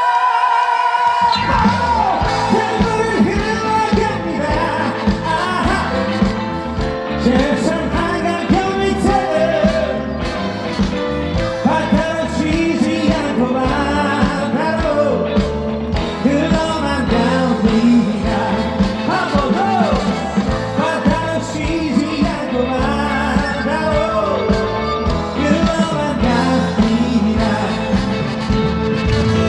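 Upbeat trot song with singing over a full band backing and a steady beat. A note is held at the start, and the drums and bass come in about a second in.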